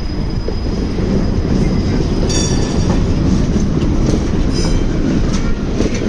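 Tram rolling past close by: a steady loud rumble of wheels on the rails with clicks as the wheels run over the track. Two brief high-pitched sounds come about two and a half and four and a half seconds in.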